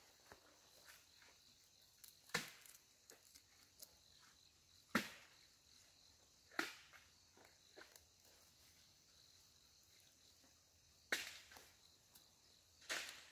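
Irregular sharp knocks or chops: five louder strikes a few seconds apart, with fainter clicks between them, over a faint steady high hiss.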